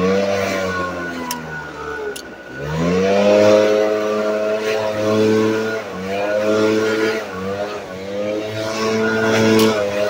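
Echo leaf blower's small engine running at high throttle. It drops off about two and a half seconds in, revs back up a moment later, then dips briefly a few more times as the throttle is eased and opened again.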